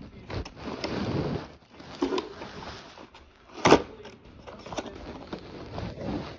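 Plastic toy parts being handled and rustled, with scattered clicks and one sharp knock a little over halfway through.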